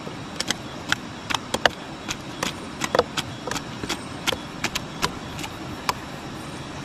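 Wood fire crackling: irregular sharp snaps and pops, about two or three a second and uneven in loudness, over a steady hiss.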